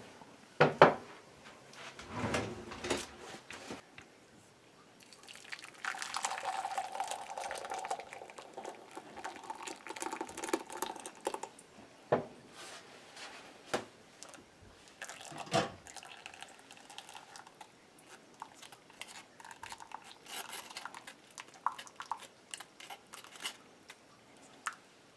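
Hot boiled custard-milk mixture being poured from the pot through a strainer, a steady pour lasting several seconds, with knocks and clinks of the pot and strainer before and after it.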